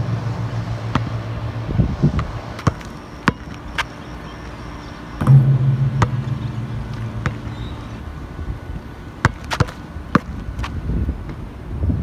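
Basketball bouncing and striking on an outdoor asphalt court: a dozen or so sharp, irregularly spaced thuds. A low steady hum runs under it for a few seconds near the start and again from about five seconds in, and wind noise on the microphone rises near the end.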